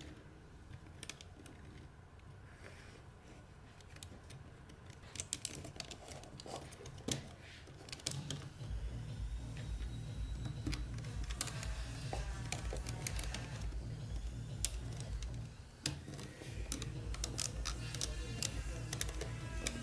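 3D-printed plastic STEMFIE construction-set parts clicking and knocking in quick, irregular clicks as beams, pins and nuts are handled and fitted together. Background music with a low steady beat comes in about nine seconds in.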